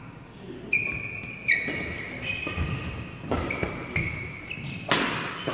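Badminton rackets striking a shuttlecock in a doubles rally: several sharp hits about a second apart, the hardest, a smash-like crack, near the end. Between the hits come high squeaks of court shoes on the court mat, echoing in a large hall.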